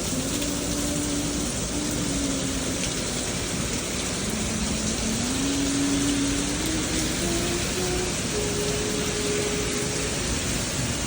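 Steady rain pouring down, with a slow melody of long held notes, one at a time and stepping up and down, heard faintly over it.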